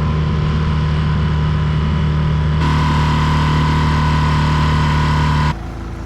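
Boat outboard motor running at a steady speed. Its sound changes abruptly about two and a half seconds in, then drops to a quieter, rushing sound near the end.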